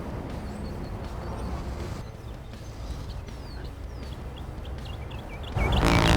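Outdoor ambience of a steady low traffic rumble with small birds chirping. Near the end a sudden loud, buzzy blast breaks in and carries on.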